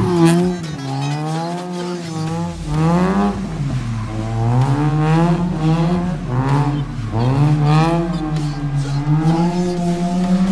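Mazda RX-7 FC's 13B rotary engine revving up and down over and over while the car is being drifted, its pitch falling sharply about three times and climbing back each time.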